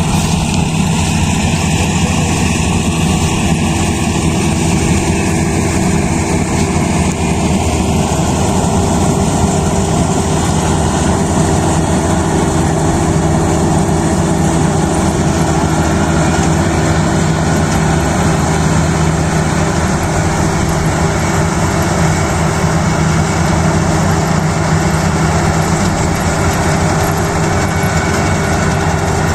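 Kubota DC-35 combine harvester's diesel engine and machinery running steadily at a constant loud level.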